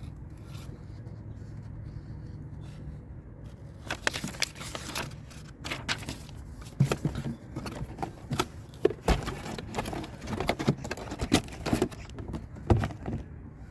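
Cardboard box and packaging being handled: a low steady hum for the first few seconds, then frequent sharp clicks, crinkles and scrapes.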